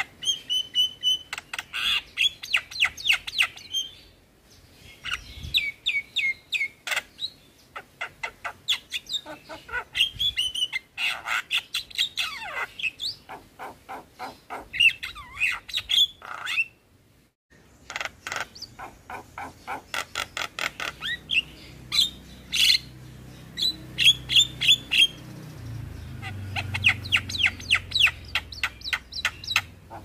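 Javan myna (jalak kebo) singing a fast, chattering song of rapid clicks, squawks and short whistled notes, delivered in bursts of a few seconds with short pauses. The sound drops out briefly about halfway through, and a low rumble rises beneath the song in the second half.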